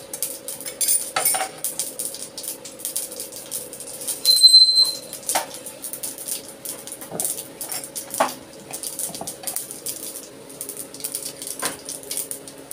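Mustard seeds popping in hot oil in a frying pan, irregular sharp crackles, with a spatula and spoon clinking and scraping against the pan. A short high ring about four seconds in is the loudest sound.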